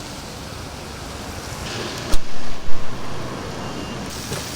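Street traffic noise, steady, broken about two seconds in by a sharp click and a loud, brief rumble.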